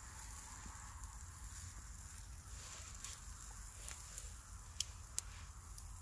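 Steaks sizzling faintly on a wire grill over campfire embers, with two sharp pops close together about five seconds in.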